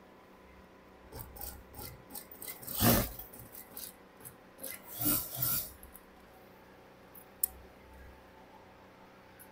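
Fabric being slid, pulled and rubbed across a sewing-machine bed by hand, in irregular scraping bursts with two louder scrapes about three and five seconds in, then one sharp click.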